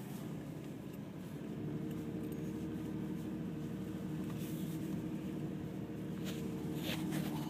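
Car cabin noise while driving slowly through deep fresh snow: a steady low rumble of engine and tyres. A steady hum joins about a second and a half in and stops near the end, and a couple of faint ticks come near the end.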